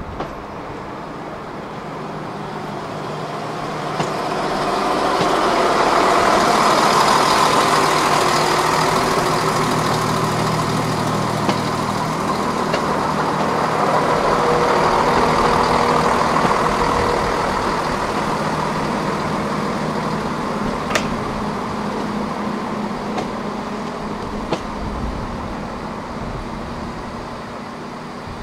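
Class 168 diesel multiple unit 168321 drawing slowly past, its underfloor diesel engines running steadily under wheel and rail noise. The sound builds over the first few seconds, and a few sharp clicks come through the passing.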